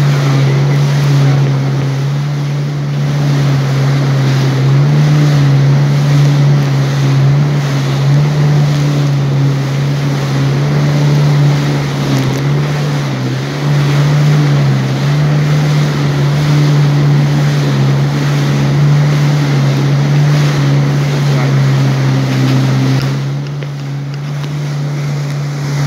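Jet ski engine running steadily at speed, a constant drone with a slight wavering in pitch. The rush of wind and spray runs under it, easing a little near the end.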